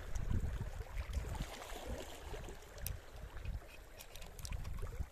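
Wind buffeting the microphone in uneven low rumbles over a faint hiss, with a few light clicks in the second half.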